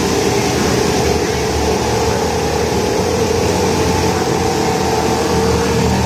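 Several bumper boats' small motors running steadily together, with the water they churn.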